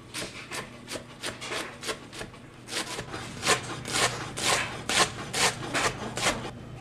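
Chef's knife chopping ponnanganni (dwarf copperleaf) greens on a cutting board: quick, even strokes about three a second, louder in the second half, stopping just before the end.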